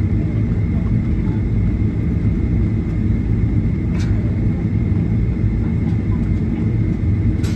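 Steady low rumble of an airliner cabin while the jet taxis, with a thin steady whine above it and a couple of faint clicks.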